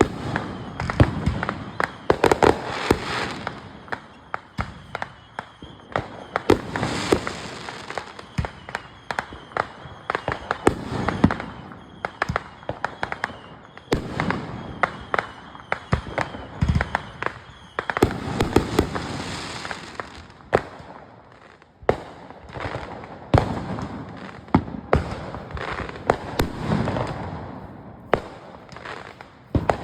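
Consumer fireworks going off: a rapid, irregular series of sharp bangs and pops with crackling between them.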